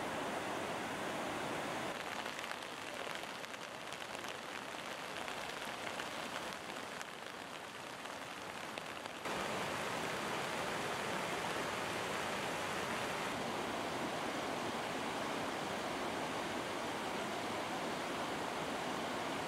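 Rushing muddy floodwater heard as a steady wash of noise, mixed with rain. About nine seconds in, a cut brings a louder, steadier rush of floodwater running into heavy surf.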